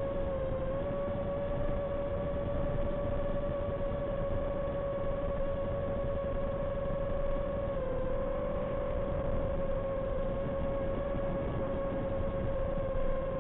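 Racing quadcopter's T-Motor F80 Pro brushless motors and 6-inch props whining at a steady pitch in fast forward flight, over a rushing wind noise. The pitch dips briefly about half a second in and again around eight seconds in.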